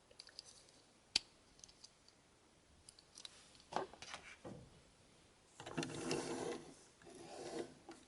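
Plastic Transformers toy being handled: a sharp click about a second in, then faint scraping and a longer stretch of plastic parts rubbing together near the end.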